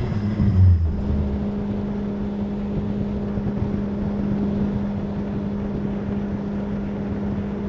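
Bass boat's outboard motor running steadily at speed, one even engine note, with a deep low rumble in the first second.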